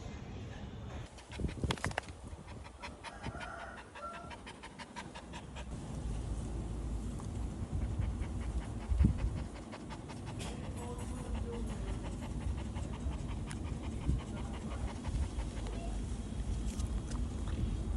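Dog panting in quick, short breaths, with a low rumble starting about a third of the way in and one thump around the middle.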